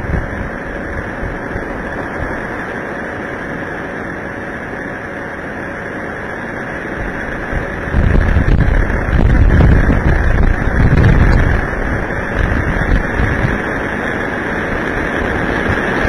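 Severe storm wind from a small tornado, picked up by a security camera's microphone: a steady wind noise, with heavy gusts buffeting the microphone from about eight to twelve seconds in.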